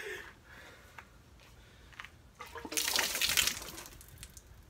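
Dark, dirty fluid pouring out of the open end of a removed Yamaha YZ250 two-stroke expansion chamber and splashing onto the ground. The pour starts about two and a half seconds in, is heaviest for about a second, then tails off.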